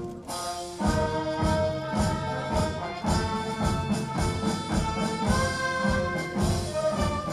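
Brass band playing a ceremonial march, with sustained brass chords over a steady drum beat of about two beats a second. There is a brief break just after the start.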